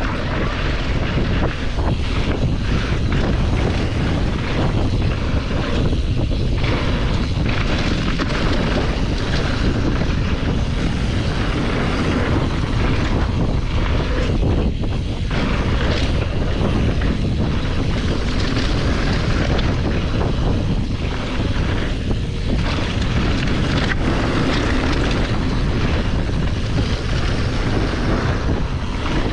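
Steady, loud wind rushing over the microphone, a dense rumbling noise that holds without a break.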